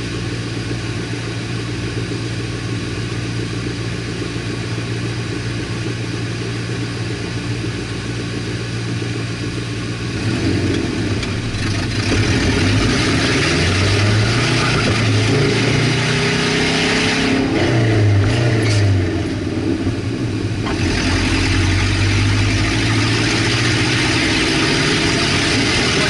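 Manual-transmission car engine with no exhaust fitted, idling steadily. About ten seconds in it revs up as the car pulls away, and the pitch rises and drops twice through the gear changes before it settles into steady running.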